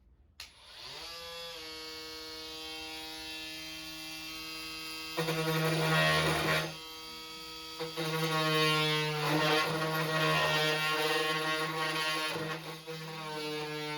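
Ryobi cordless oscillating multitool starting up with a rising whine, then running with a steady buzz. Twice it turns louder and rougher, from about five seconds in and again from about eight seconds in, as the wood-cutting blade bites into the wood of a cabinet.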